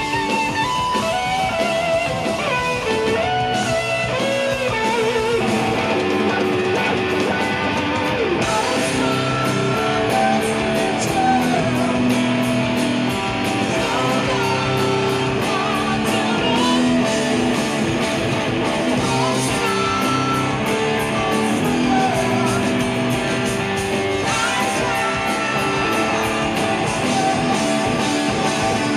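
Live rock band playing loudly, an electric guitar on a Telecaster-style body leading over drums.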